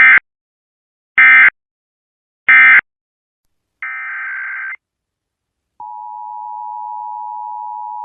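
Emergency Alert System SAME data tones: three short, loud end-of-message bursts about a second apart, marking the end of the alert. They are followed by one longer, quieter data burst and, about six seconds in, the steady two-tone EAS attention signal, which begins the next alert.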